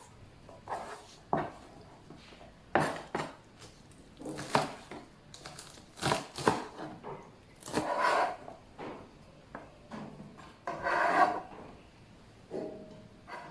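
Kitchen utensils being handled: irregular knocks and clacks of dishes, cutlery and wood, with a couple of longer scrapes about eight and eleven seconds in.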